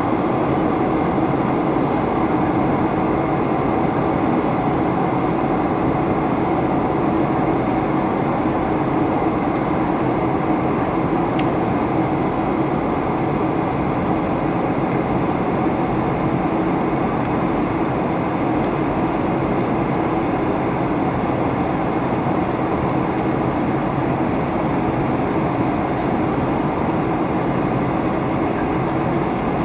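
Steady cabin noise of a jet airliner on descent, heard from inside the cabin: an even rushing of engines and airflow that holds level throughout.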